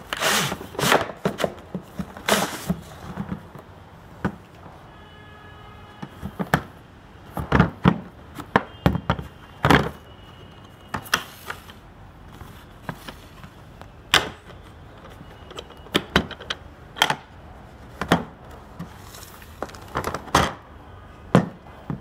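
Irregular clicks, knocks and thuds of a torque wrench's cardboard box and black plastic carrying case being handled and opened on a glass counter, and the wrench being lifted out.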